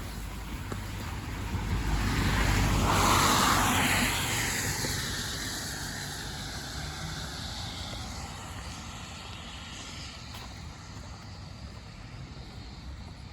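A car passing by on a wet road: the tyre hiss swells to its loudest about three seconds in, then fades away slowly.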